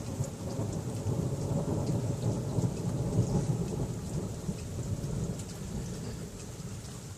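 Thunder rumbling low and long, swelling in the middle and slowly dying away toward the end, over steady rain with scattered drop ticks.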